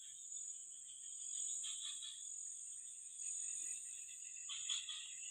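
Steady high-pitched insect chorus, with a weaker second band of insect song below it.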